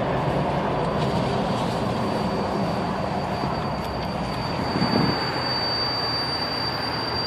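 A thin, steady, high-pitched whistle from a Jeep TJ Wrangler while it coasts off the throttle after highway driving, over the engine and road noise. The whistle grows clearer and louder in the second half; the owner does not know its cause.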